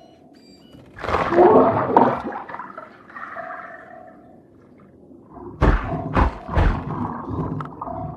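Cartoon sound effects: a loud tearing, squelching burst about a second in as the submersible's mechanical claw rips a diver apart, then a run of heavy thuds near the end, over a soft recurring sonar ping.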